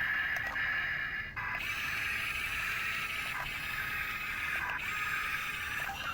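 Small electric motors and gearboxes of RC construction models whirring steadily, with a short break about a second and a half in.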